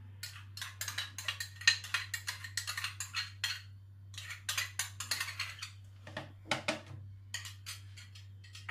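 Spoon scraping yogurt out of a small plastic pot into a plastic blender jar: quick clicking scrapes in four runs with short pauses between them.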